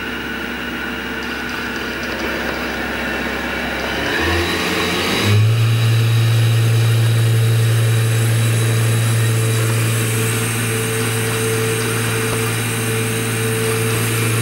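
Spindle of a Haas SL-30T CNC lathe (40 hp) running with no cut being taken. About four to five seconds in it rises in pitch as the spindle speeds up, then it settles into a loud, steady hum.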